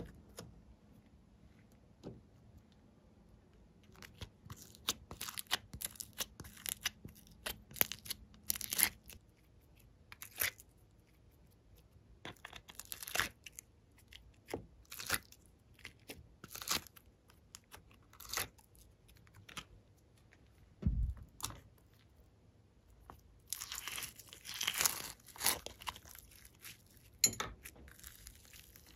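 Glossy slime and soft clay being pressed, kneaded and pulled apart by hand, giving sticky clicks and pops in irregular runs. There is one dull thump about two-thirds of the way through, and a denser crackling stretch near the end as a glitter-flecked slime is handled.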